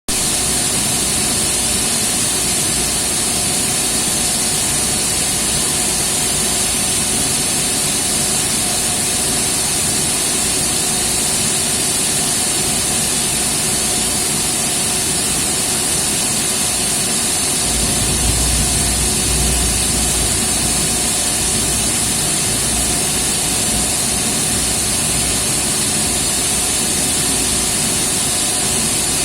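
Electric motor connected in delta, running with a steady loud growl and hiss, with a deeper rumble swelling about eighteen seconds in. The growl on starting is put down to a short circuit in the winding.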